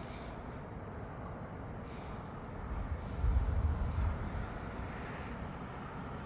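A low rumble of distant thunder that swells and fades over about a second and a half, over steady outdoor background noise.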